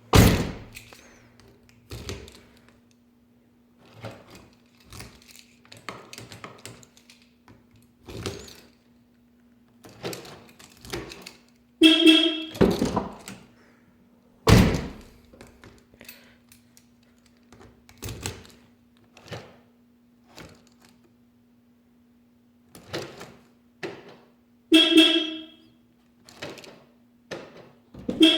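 Porsche 986/996 door lock being worked over and over: a series of separate clunks and clicks from the lock and latch, with a short electronic beep from the car's alarm system about twelve seconds in and again near the end, over a faint steady hum.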